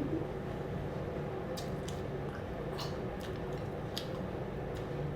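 People eating biryani: scattered small wet clicks and smacks of chewing, a few seconds apart, over a steady low background hum.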